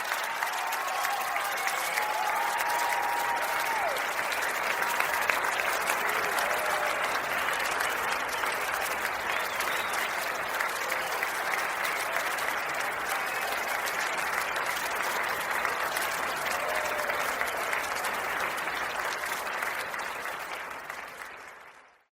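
Large audience applauding, with a few voices calling out over it; it fades out near the end.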